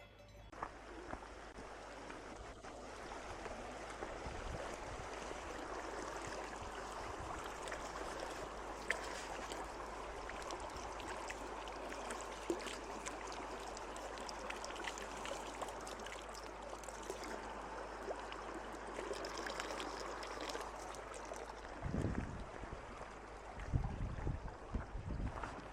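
Mountain stream rushing steadily, swelling over the first few seconds. Low thuds come in near the end.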